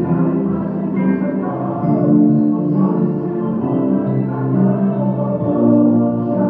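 Yamaha digital stage piano played with both hands: a slow run of sustained chords, changing about once a second.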